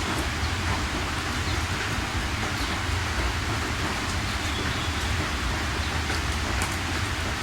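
Steady heavy rain, a constant hiss with a low rumble underneath and scattered drop ticks.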